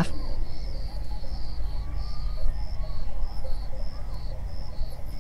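Insects chirping in the grass, a high-pitched chirp repeating about two or three times a second, over a steady low rumble.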